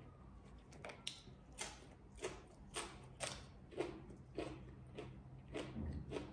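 Chewing a mouthful of raw green bean pod, a steady crunch about twice a second.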